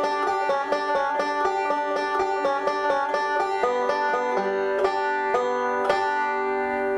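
Five-string banjo fingerpicked in quick rolls and pinches, a steady run of bright plucked notes. Near the end the picking stops and the last notes are left ringing.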